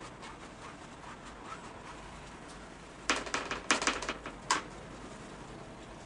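Clatter of painting tools being handled: a quick run of sharp knocks and clicks about three seconds in, lasting about a second and a half, with a few faint ticks before it.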